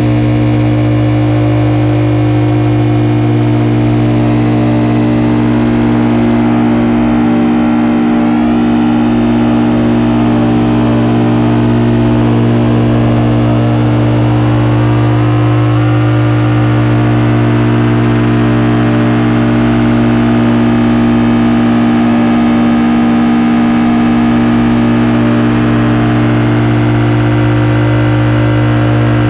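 Loud electronic drone noise from a Hewlett-Packard 200C audio oscillator and Frequency Analyzer v1 units: many steady tones held together over a heavy low hum. A high hiss drops out after about six seconds, and the higher tones slowly slide upward in pitch through the middle.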